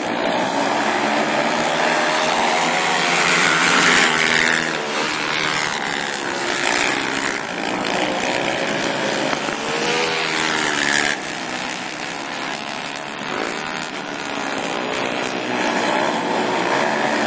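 Racing ATV engines running hard on a dirt flat track, revving up and down as the quads pass, loudest about four seconds in and dropping off suddenly about eleven seconds in.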